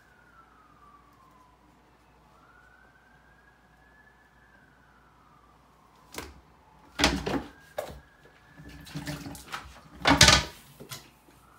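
Plastic toilet seat lid banging down as a calico kitten climbing on it slips, with several clattering knocks, a stretch of scrambling, and the loudest bang a little after ten seconds. A faint distant siren rises and falls before the knocks start.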